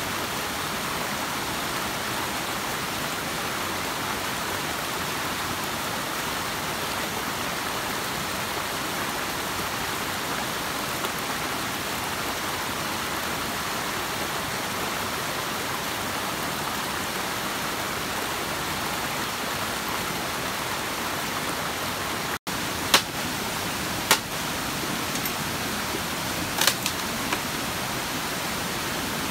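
A forest stream rushing steadily over rocks. Near the end, a few sharp knocks of wooden poles being handled on the rock.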